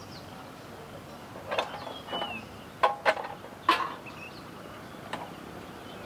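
A handful of sharp knocks and clicks, about five spread over the few seconds, the loudest two a second apart near the middle, over a faint steady background, with one brief high chirp about two seconds in.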